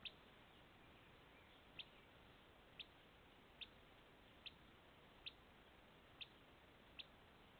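Hiccups: eight short, sharp hics at roughly one a second, faint against a quiet room.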